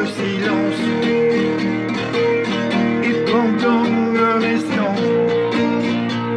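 Background music: acoustic guitar picking steady plucked notes over sustained chords, with a melody line that bends in pitch.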